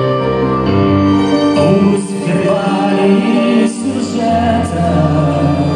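Live rock band with a string section of violins and cello playing a slow passage of long held notes and chords, with a sung line in the middle.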